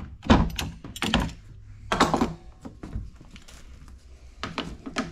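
Clunks and clacks of a locking C-clamp being released and a plastic concealed-hinge jig being lifted off a wooden door panel. There are three loud knocks about a second apart in the first two seconds, then lighter knocks and clicks near the end.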